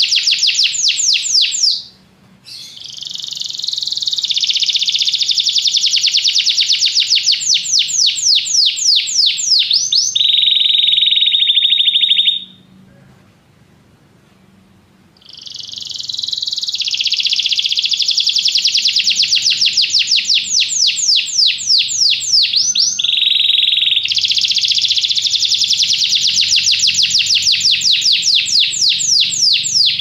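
Domestic canary singing long phrases of rapid trills that slow into separated notes. There is a short pause about two seconds in and a longer, three-second pause near the middle.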